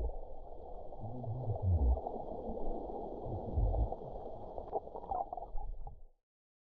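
Muffled water gurgling and sloshing, heard from just under the sea surface, with a few dull low thumps. It cuts off suddenly near the end.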